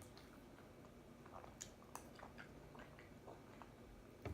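Faint close-up chewing, with soft wet mouth clicks scattered through.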